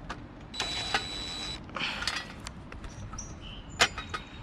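Power drill running for about a second with a steady whine, backing out a screw, then a shorter burst just after. A sharp click near the end.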